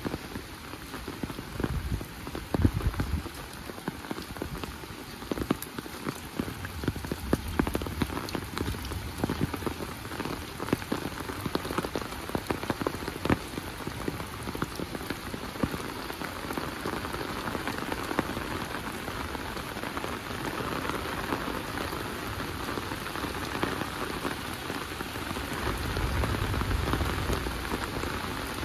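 Heavy rain falling steadily, with many individual drops striking close by. There is a brief low rumble a couple of seconds in and another near the end.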